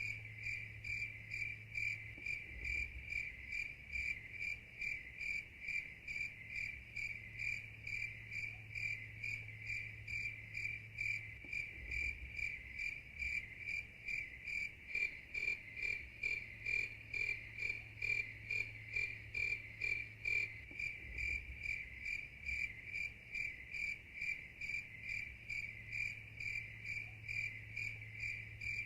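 Crickets chirping at night in a steady, even rhythm of about two to three chirps a second, over a low steady hum. A second, fainter pulsing insect call joins from about halfway through for several seconds.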